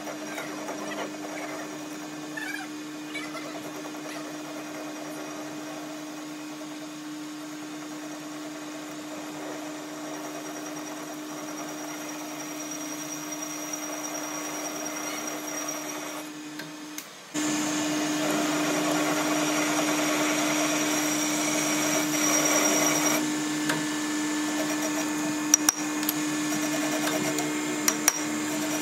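Metal lathe running steadily, its cutting tool facing the end of a shaft held in a four-jaw chuck, with a constant motor hum. About two-thirds through the sound briefly drops away and comes back louder, and a few sharp clicks come near the end.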